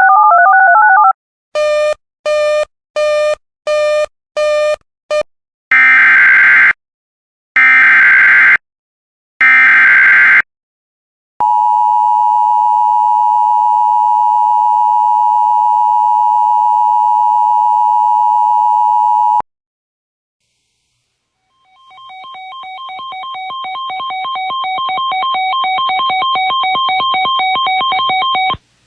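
Emergency Alert System signalling tones between two severe thunderstorm warnings. The end of a warbling data burst comes first, then six short beeps and three one-second bursts of screeching digital header data. An eight-second steady two-note attention tone follows, and after a pause a rapidly pulsing electronic tone fades in and cuts off suddenly near the end.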